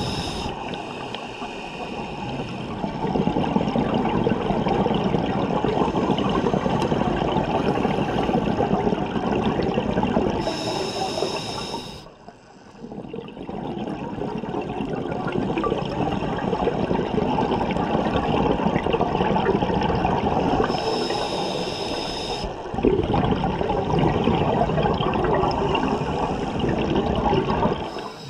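Scuba diver breathing through a regulator underwater: long gurgling rushes of exhaled bubbles, broken about every ten seconds by a short, higher hiss as the diver inhales.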